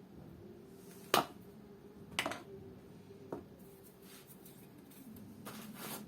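Three sharp clicks or taps from small tools and materials being handled on a workbench, spaced about a second apart, then a short rustle near the end, over a faint steady hum.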